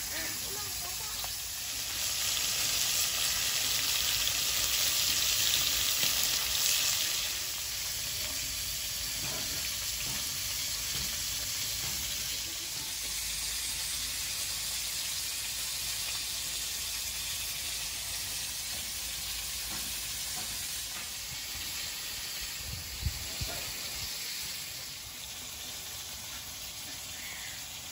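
Pieces of gagra tengra river catfish frying in oil in a wok, a steady sizzle. The sizzle is louder for about five seconds near the start, and there are a couple of light knocks late on.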